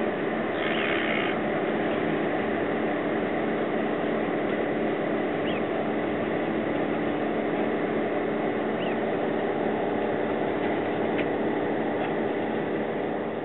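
Steady engine drone with several held tones, typical of heavy machinery running nearby. A brief hissing noise comes about half a second in, and a few faint short high chirps come later.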